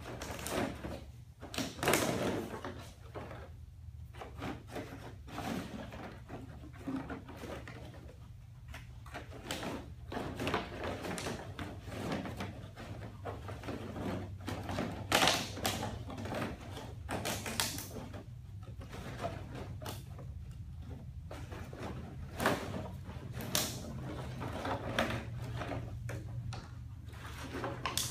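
Empty plastic bottles clattering and crinkling against each other and against a plastic kiddie pool as a dog roots through them with its nose and front paws for treats. The sound comes in irregular bursts, with a louder knock now and then, over a steady low hum.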